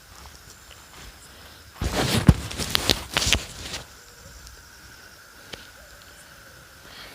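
Footsteps crunching and rustling through dry leaves and undergrowth for about two seconds, a couple of seconds in, over a faint steady chirring of crickets.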